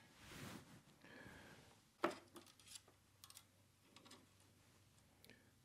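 Near silence with a soft rustle at the start and a few small clicks of hands handling tools and solder wire. The sharpest click comes about two seconds in.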